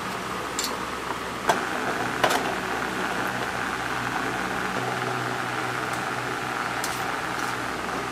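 Steady whirring hum and hiss of a running electric fan, with a few light clicks and taps in the first couple of seconds and once more near the end.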